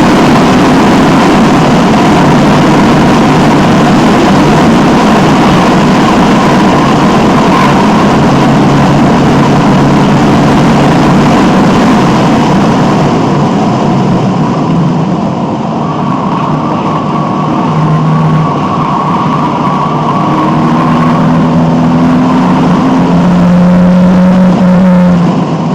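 Alfa Romeo 1750's twin-cam four-cylinder engine under hard acceleration on track, heard from inside the car. The engine is loud throughout, eases briefly about fifteen seconds in, then climbs again.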